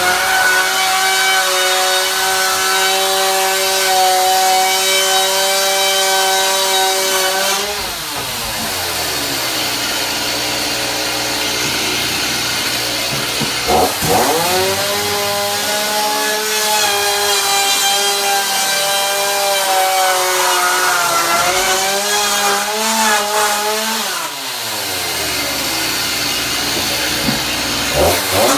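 Two-stroke chainsaw running hard under throttle while cutting. About eight seconds in it falls back toward idle, revs up again around halfway, eases off again later, and revs up once more near the end.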